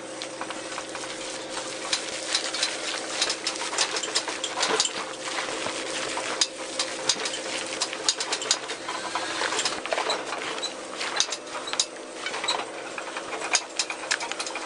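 Gloved hands mashing and mixing a potato, egg and vegetable salad in a large stainless steel bowl: irregular wet squelches and clicks, over a steady background hum.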